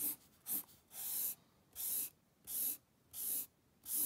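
Felt-tip marker drawing straight ruled lines on paper: seven quick strokes, each a short hiss, roughly one every half second, with a longer stroke about a second in.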